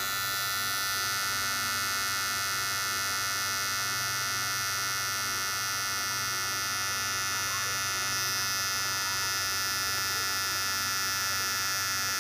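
Small electric can motor of a homemade toy car running steadily as the car drives, a high-pitched electric whine.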